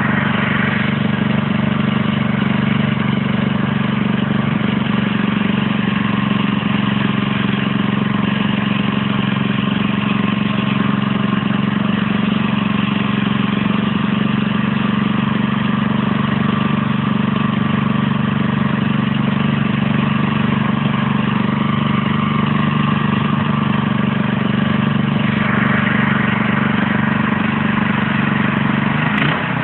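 Homemade mini tractor's 200cc OHV single-cylinder petrol engine running at a steady speed, its note shifting slightly near the end.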